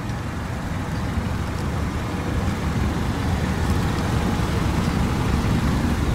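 2017 Kia Rio's 1.6-litre inline-four idling: a steady low rumble that grows a little louder.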